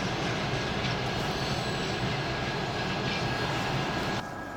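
A freight train of covered hopper wagons passing over a level crossing: steady rolling rumble and wheel noise from the wagons on the rails, which cuts off suddenly near the end, leaving a quieter steady background.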